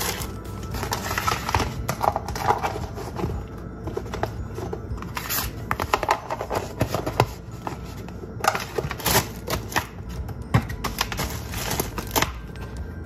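Plastic snack bags crinkling and plastic food containers clicking and knocking as they are packed into a lunch bag by hand, over background music.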